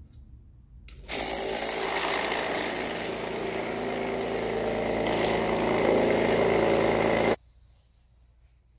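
Vibratory case tumbler running with a load of .308 Winchester brass cases in granular media: a loud, steady mechanical noise that starts abruptly about a second in and cuts off suddenly near the end.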